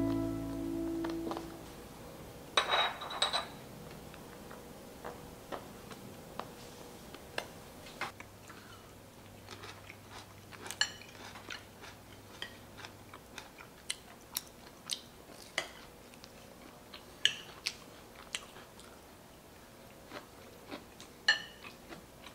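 Background music fades out, then cutlery clinks and taps against a ceramic plate and glass butter dish while bread is buttered and handled: sharp, irregular clinks, loudest in a cluster about three seconds in.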